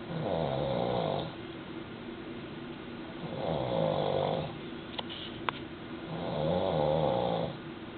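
A man snoring in deep sleep: three long snores, each about a second long and about three seconds apart. Two short clicks come around five seconds in.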